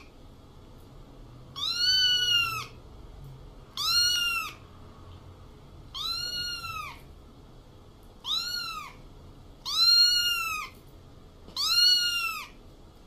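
Domestic cat meowing: six high, near-identical meows, each rising then falling in pitch and lasting under a second, coming about every two seconds. A faint steady background noise runs between the meows.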